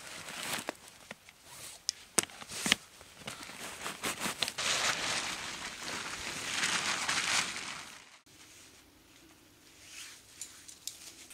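A few sharp clicks at the backpack, then a plastic tarp rustling and crinkling loudly as it is pulled out, shaken open and spread on the ground. The crinkling stops abruptly a little after halfway, and fainter rustling follows.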